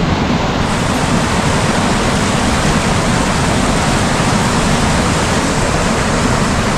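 Mountain stream cascading over boulders: a steady, loud rush of water.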